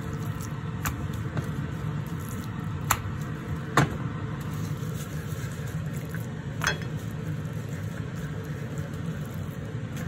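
Gloved hands rubbing oil and spices into raw pork chops on a plate, wet squishing with a few sharp clicks, over a steady low hum.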